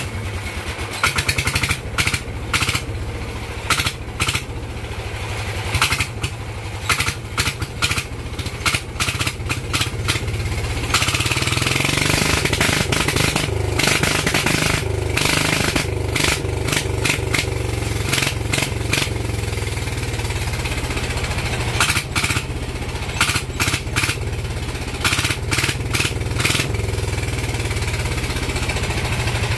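Diesel engine of a racing lawn tractor running just after starting, a steady low drone with a fast, uneven clatter over it. It runs louder from about eleven seconds in.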